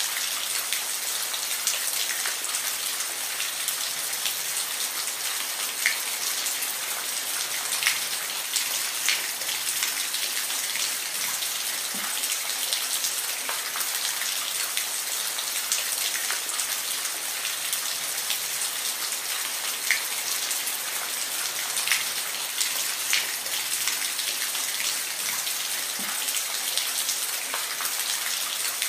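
Steady rain falling, a continuous hiss with scattered louder individual drops pattering on a surface.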